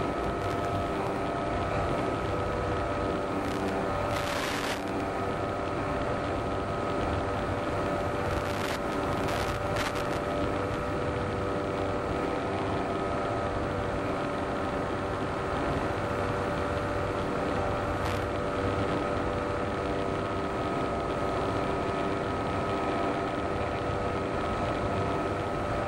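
Electric motor and propeller of a small RC airplane running steadily under power, a constant whine of several tones over rushing air. Brief bursts of hiss break in a few times, about four seconds in, around nine seconds and near eighteen seconds.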